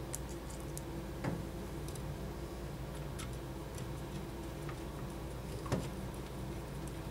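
Scattered small clicks and ticks of a screwdriver and small Phillips screws being driven back into a sensor mounting plate, the sharpest about a second in and near six seconds, over a steady low hum.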